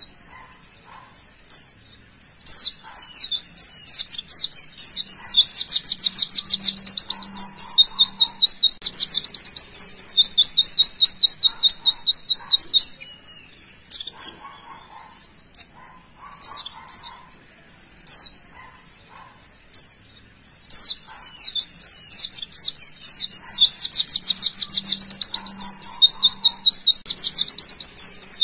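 White-eye (pleci) singing its rapid-fire 'tembakan' song: long fast runs of sharp, high repeated notes mixed with short chirps. The song comes in two long bursts with a pause of several seconds between them.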